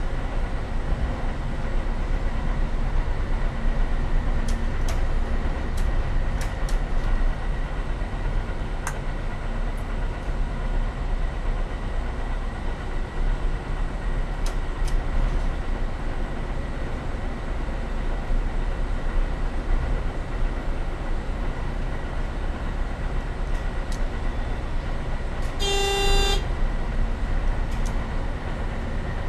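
Y-train diesel railcar running along the line, heard from inside the driver's cab as a steady rumble with scattered sharp clicks. Near the end the train's horn gives one short toot.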